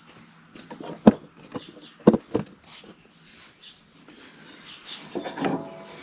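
Clicks and clanks of a breaker bar and 15 mm socket working the spring-loaded belt-tension bracket of a John Deere L120 mower deck as the handle is pulled to slacken the deck belt. A sharp knock comes about a second in, and two more follow at about two seconds.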